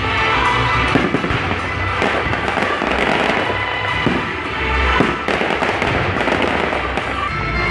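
Fireworks display: aerial shells bursting in a run of bangs and crackles, the sharpest bangs about a second in and near five seconds, with music playing underneath.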